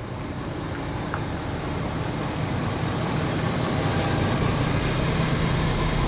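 Pickup truck's engine running as it backs slowly into a shop bay, growing gradually louder as it comes closer.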